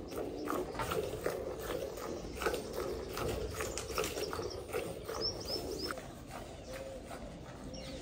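A cow being hand-milked: squirts of milk hitting a metal pail that already holds frothy milk, in a quick, irregular run of strokes. A bird chirps briefly about five seconds in.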